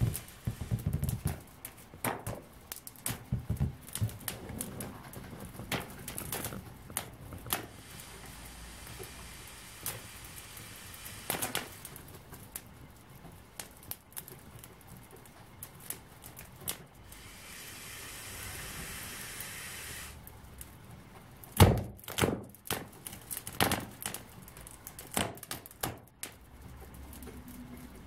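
Rubber balloon slowly deflating inside a paper mache shell: irregular crackles, pops and creaks as it shrinks, with a soft hiss for a few seconds past the middle and the sharpest crack a little after.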